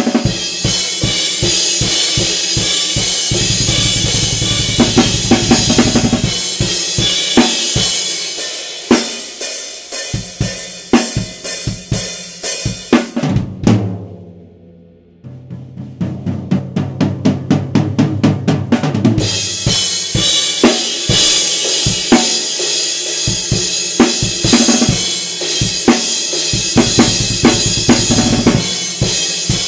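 Acoustic drum kit played hard on its own, with no other instruments: cymbal crashes and snare over rapid bass drum strokes. About halfway through the playing breaks off and the kit rings down almost to quiet. Bass drum strokes then come back and the full kit builds up again.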